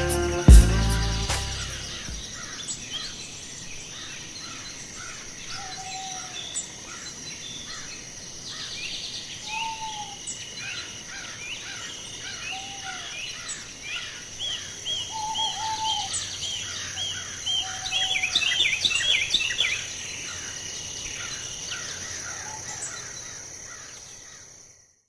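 Spring outdoor ambience of many songbirds chirping and singing over a steady high-pitched hum, with a few lower, arched calls every couple of seconds. A dense flurry of chirps about three-quarters of the way through is the loudest moment, and then everything fades out. The tail of a music track dies away in the first second or two.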